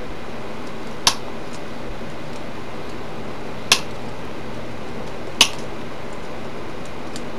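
Copper wire being snipped with cutters: three sharp, separate clicks a couple of seconds apart, over a steady background hiss.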